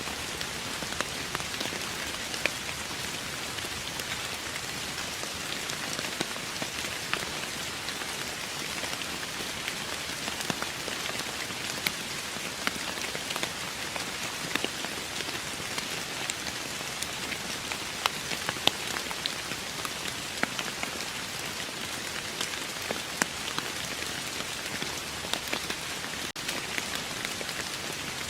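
Steady rain falling on a hard surface: an even hiss with many scattered, sharper drop ticks, and a momentary dropout near the end.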